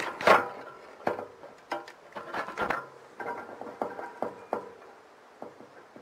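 Model train's wheels clicking and clacking over rail joints and points as it runs on the layout. The loudest clack comes about a third of a second in, then irregular fainter clicks thin out over a fading running hiss.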